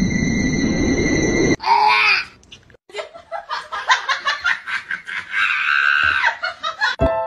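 A person laughing in quick bursts, about four a second, that rise into a drawn-out shriek near the end; a loud noisy rush comes before it.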